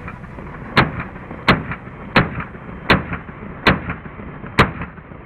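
Pistol shots fired at a steady pace, six sharp cracks about one every three-quarters of a second, each followed by a short echo.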